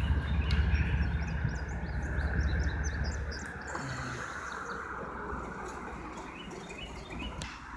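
Low diesel rumble of a CSX GE ES44AH locomotive switching covered hoppers, dropping away about three seconds in. Birds chirp over it.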